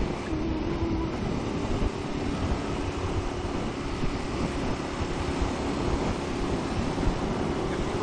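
Wind rushing over the microphone with a 2016 Ducati Monster 1200 R's L-twin engine running underneath at a steady cruise.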